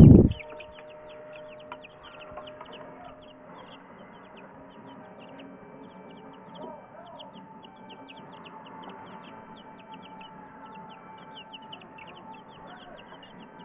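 Baby chicks peeping continuously, many short high peeps a second from several birds at once. A loud thump right at the start.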